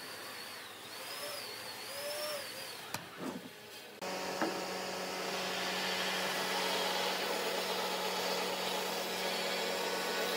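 A band saw running and cutting through a thick pine board: a steady motor hum under a rising hiss of the blade in the wood. It starts suddenly about four seconds in, after a quieter stretch with a faint wavering whistle-like tone.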